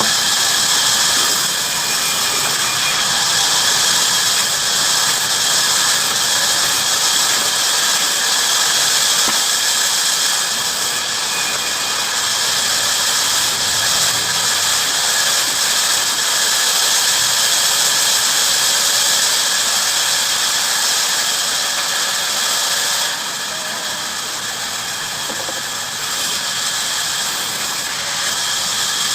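Bandsaw blade running through wood, a steady high-pitched hiss of the cut. It eases off for a few seconds about three quarters of the way through, then picks up again.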